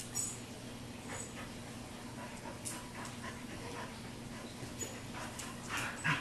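Two dogs, a German Shepherd/Chow mix and a young American Bulldog mix, play-fighting, with short, scattered dog noises; the loudest comes near the end.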